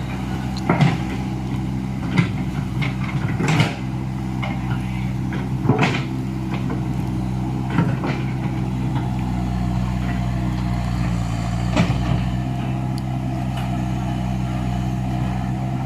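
Komatsu hydraulic excavator's diesel engine running steadily, with sharp knocks and clanks every second or two in the first half, then only one or two later.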